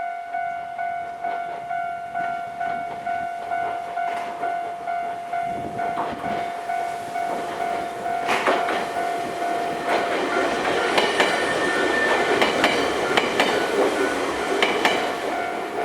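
Japanese railway level-crossing warning bell dinging steadily about twice a second. From about halfway through, a Nankai Kada Line train rumbles over the crossing, its wheels clacking on the rail joints, and grows loudest near the end.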